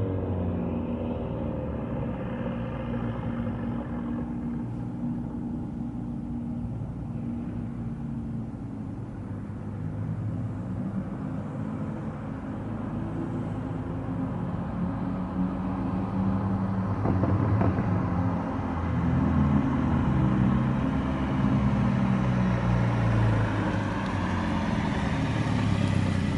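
Straight-piped 2015 Mini Cooper S (F56) turbocharged four-cylinder engine running through its catless turbo-back exhaust, a steady drone that grows louder and shifts in pitch in the second half.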